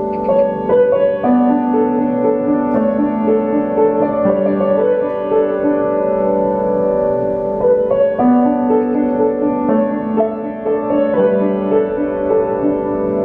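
Upright piano being played: a melody of sustained notes over low bass notes that change about every three to four seconds.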